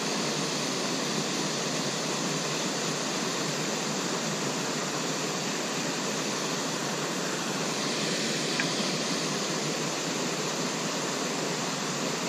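Steady rush of water pouring over a small dam spillway into a stream pool.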